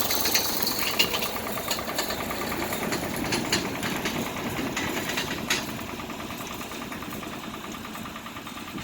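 Vehicle engine running steadily while pulling a roller crimper, with scattered clanks and knocks over a fast regular ticking. It gets a little quieter about five and a half seconds in.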